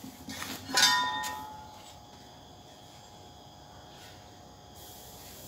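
Steel plate parts clinking as they are handled, then one metal-on-metal knock about a second in that rings briefly like a bell.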